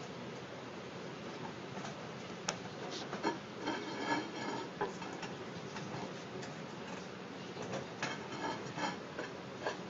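Wheeled kettle grill clicking and rattling irregularly as a tortoise walks beneath it, carrying it on its shell and rolling it across concrete. There is one sharp click about two and a half seconds in, and bunches of rattles in the middle and near the end.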